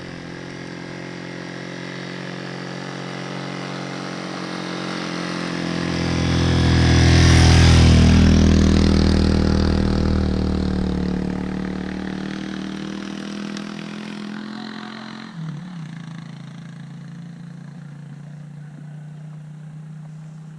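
Motor vehicle engine running steadily, while a vehicle passes close by, its sound swelling to a peak about halfway through and then fading away. The sound changes abruptly about three-quarters of the way in.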